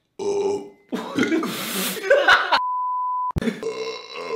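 A man burping loudly several times in a row. A steady high beep lasting under a second cuts in between the burps, about two and a half seconds in.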